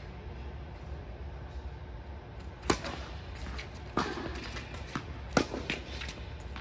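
Tennis ball struck back and forth with rackets on an indoor court: three sharp pops about a second and a half apart, with softer ball bounces between them, over the steady hum of the hall.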